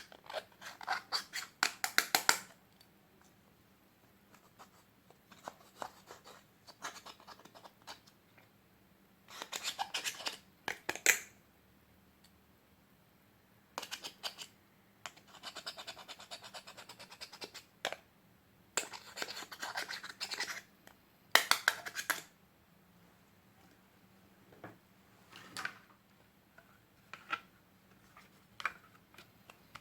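Dry scratching and rattling from slime decorating materials (glitter, makeup, beads) being handled on a table. It comes in repeated bursts a second or two long, with pauses between them, and thins to a few short ticks near the end.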